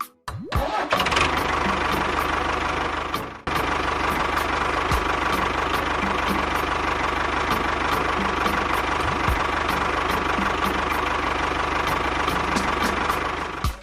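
A small engine running steadily with a regular low pulse. It breaks off briefly about three and a half seconds in, then runs on.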